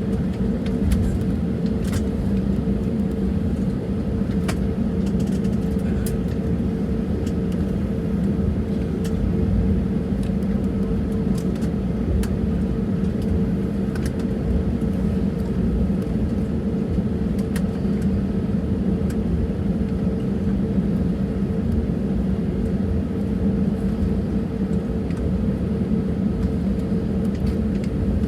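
Airbus A320neo cabin noise while taxiing: the CFM LEAP-1A engines at taxi power make a steady rumble with a constant hum. A few faint clicks and rattles occur now and then.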